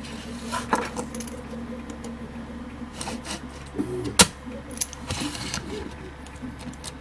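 Light clicks and metallic taps of a floppy drive's sheet-metal frame and small parts being handled and fitted by hand, with one sharp click about four seconds in the loudest.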